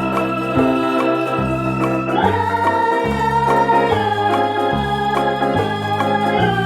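Background music played on an electronic organ, with sustained chords over a bass line that moves every half second or so.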